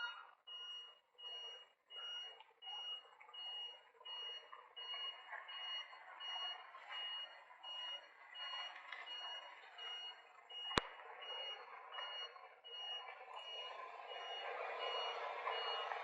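Vehicle reversing alarm beeping steadily, a little under two high beeps a second, over a background hiss that grows louder near the end. A single sharp click sounds about eleven seconds in.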